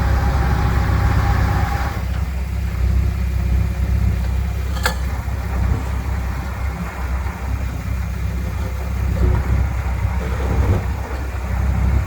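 Heavy earthmoving machine's diesel engine running steadily with a low rumble. A single sharp click comes about five seconds in.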